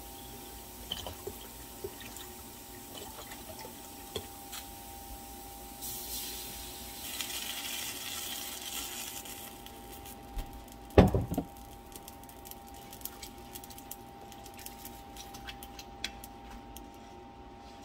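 Chicken broth poured into a pot of browned squash and sausage, a splashing hiss for about four seconds. A sharp knock follows about a second later, then light taps of a wooden spoon stirring the soup, over a steady faint hum.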